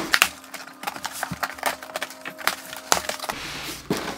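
Cardboard shipping box being opened by hand, its flaps pulled apart with a run of sharp crackles and snaps.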